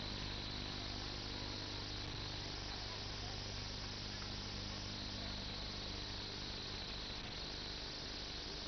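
Steady electrical hum and hiss from an open public-address system, with a constant high-pitched buzz over it.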